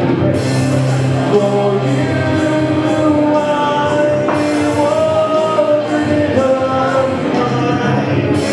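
Live rock song: singing with long held notes over steady instrumental backing.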